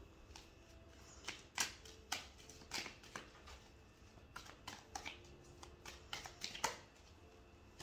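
Tarot cards being handled on a table: a string of light, irregular taps and flicks, roughly two a second, with short gaps.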